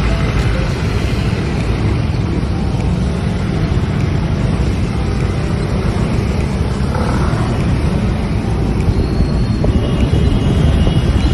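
Steady rumble of road and engine noise from a moving vehicle, with wind rushing over the microphone.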